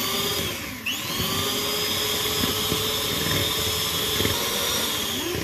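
Electric hand mixer running, its beaters whirring through cake batter. The motor's whine dips briefly about a second in and picks back up, then holds steady.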